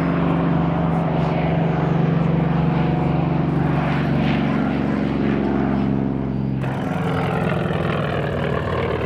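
Propeller aircraft engine running steadily with a low, even engine note. About two-thirds of the way through, the sound changes abruptly to a noisier aircraft sound.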